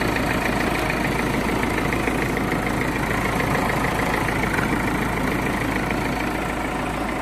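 Renault 1.5 dCi (K9K) four-cylinder turbodiesel engine idling steadily with a diesel clatter.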